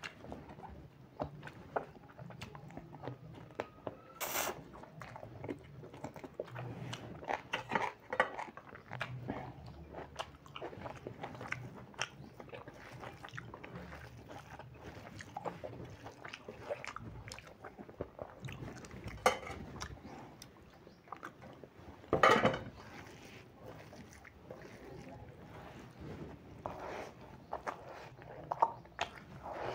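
Close-up chewing and wet mouth smacking from a man eating rice and chicken curry by hand, with many small clicks. Two louder sharp smacks or knocks stand out, about four seconds in and again around twenty-two seconds in.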